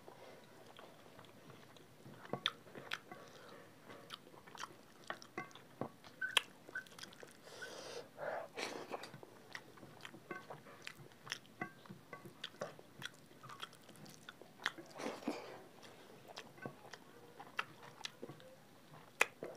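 Two people eating rice with dal and egg curry by hand, close-miked: steady chewing with many short wet lip smacks and mouth clicks, and a few longer, louder mouthfuls about eight and fifteen seconds in.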